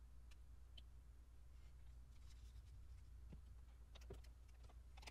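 Near silence: a steady low room hum with a few faint, scattered clicks.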